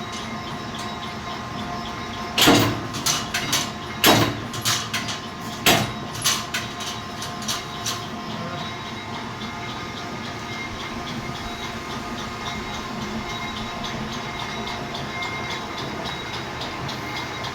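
Milling machine running with a steady motor and spindle hum, with a burst of sharp metallic knocks and clanks a few seconds in that dies away, then the steady running alone.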